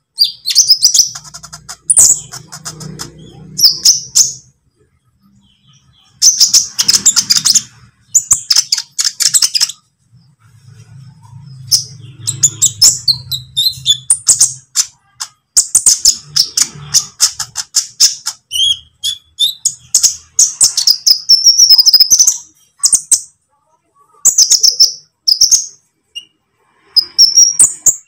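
Olive-backed sunbird singing: rapid, high-pitched chirps and twittering trills in bursts of a second or two, broken by short pauses.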